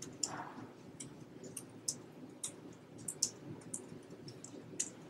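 Faint, scattered clicks of laptop keys and trackpad, coming at an uneven pace over a low room hum.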